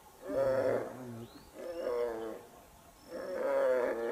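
An animal calling three times, each call drawn out for about a second and pitched fairly low, with a gap of about half a second between calls.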